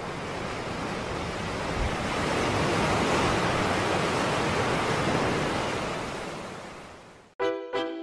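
Sea surf, a steady rushing noise that swells to a peak about three seconds in and then slowly fades. It cuts off suddenly near the end, and piano music begins.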